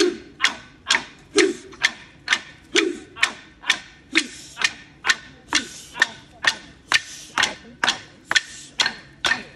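Clapsticks struck in a steady beat, about two strikes a second, each strike ringing briefly. For the first few seconds a lower thud falls on every third strike.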